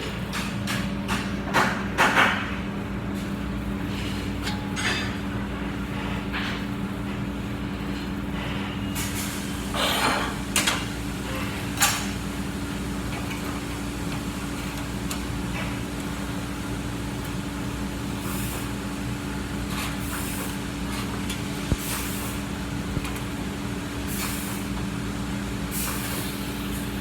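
TIG welder running: a steady electrical hum with an even hiss, broken by a few sharp knocks in the first couple of seconds and again about ten to twelve seconds in.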